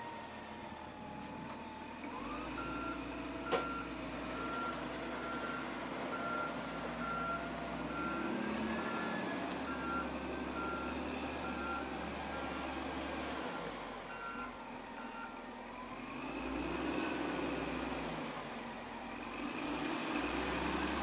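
Wheel loader engine running and revving up and down as it handles a round hay bale, with its reversing alarm beeping at an even pace, about one and a half beeps a second, from a couple of seconds in until about fifteen seconds in. A single sharp knock about three and a half seconds in.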